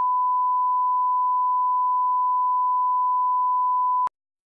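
Bars-and-tone test signal: a steady 1 kHz reference tone, a single pure pitch, played with colour bars as a level line-up. It cuts off suddenly about four seconds in.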